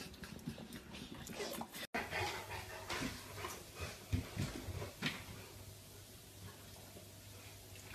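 Soft dog sounds with a few light knocks, over a faint low steady hum.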